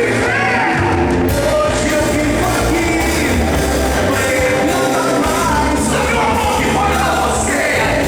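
Worship band playing a rock-style song, with singing over bass and drums at a steady loud level.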